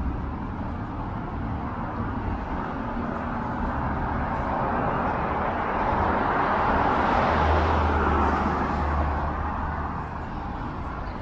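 A motor vehicle passing on a city street, its tyre and engine noise building, peaking with a low rumble about seven seconds in, then fading away, over steady urban traffic hum.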